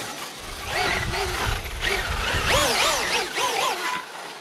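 Electric motor of a radio-controlled car whining in quick throttle blips. About four rising-and-falling revs come in the second half, over a low rumble.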